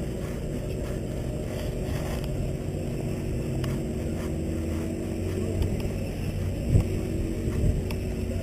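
Steady low engine drone, even in pitch, with no rise or fall.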